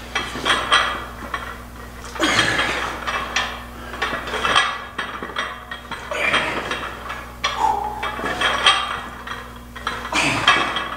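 Plate-loaded barbell being rolled out and back across a rubber floor mat for ab rollouts. The plates and bar clink and rattle in bursts about every two seconds, one burst per roll.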